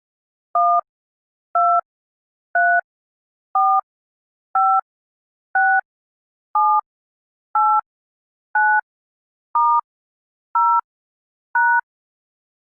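Telephone keypad touch tones (DTMF) keyed in order 1 to 9, then star, 0 and pound: twelve short two-note beeps, one each second.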